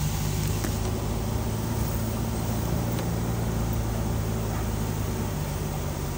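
Car engine and tyre noise heard from inside the cabin while driving at a steady pace, a constant low hum over road rush.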